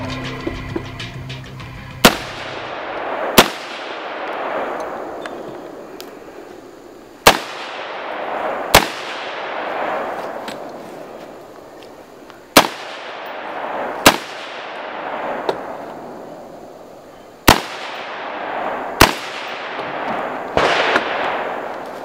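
AR-15-style rifle fired in four pairs of shots, the two shots of each pair about a second and a half apart and about five seconds between pairs, each shot ringing out with a long echo.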